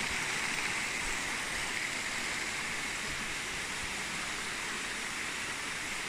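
Shallow, rocky stream running over stones and small cascades, a steady rush of water.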